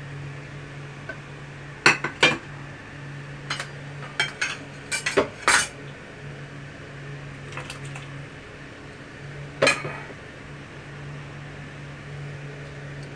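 Crockery and utensils clinking against a pot as ingredients are tipped into boiling fish soup: about a dozen sharp clinks in clusters, the loudest about two, five and ten seconds in, over a steady low hum.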